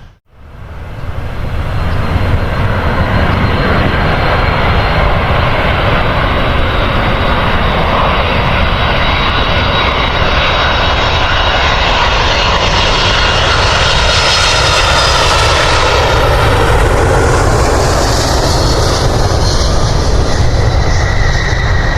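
Passenger airliner's engines running loud and steady, building up over the first couple of seconds; a higher, hissing edge grows stronger about halfway through.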